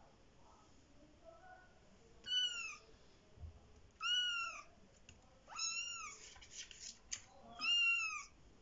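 Kitten mewing: four high-pitched cries about two seconds apart, each rising then falling in pitch.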